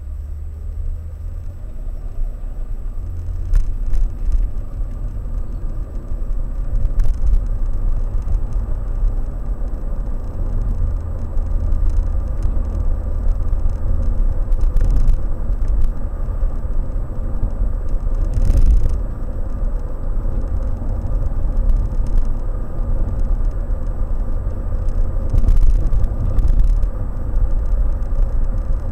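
Car driving, heard from inside the cabin: a steady low rumble of engine and road noise that grows louder as the car pulls away and gathers speed over the first few seconds, with a faint steady hum and several short knocks along the way.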